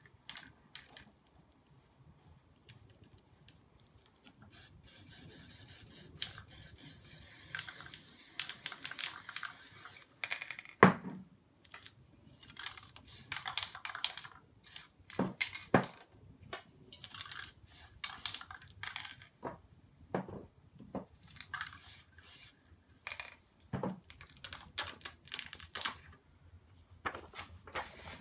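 An aerosol spray paint can spraying in one steady hiss for about five seconds, then a sharp knock. After that come many short, irregular rustles and rubs of paper being pressed and rubbed by hand over the wet paint.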